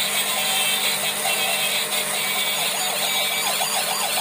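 Electronic siren of a toy police truck: a few short level tones, then from about halfway a fast wail rising and falling about three times a second, over a steady whirring hiss from the toy.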